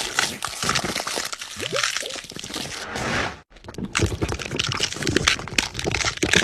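Gore sound effects: dense wet squelching and crunching of flesh and bone, in two takes split by a brief silent gap about three and a half seconds in.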